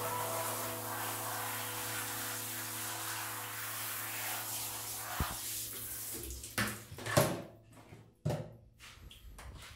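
A handheld shower head spraying water onto a wet cat: a steady hiss of running water that stops about six seconds in. A few short, sudden splashy noises follow.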